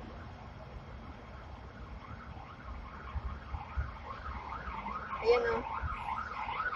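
Siren wailing up and down about twice a second, growing louder over the last few seconds, over the low rumble of a Hong Kong tram running. A short burst of voice comes near the end.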